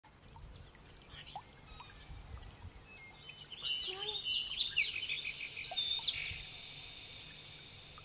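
Lovebirds chirping: rapid, high, scratchy chirps, faint at first, then louder and busier from about three seconds in, and dying away about two seconds before the end.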